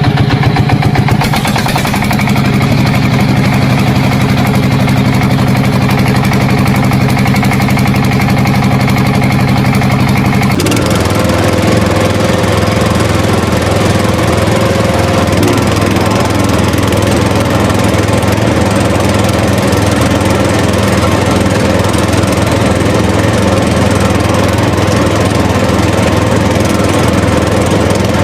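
Small motor of a homemade mini tractor running steadily, with its note changing abruptly about ten seconds in.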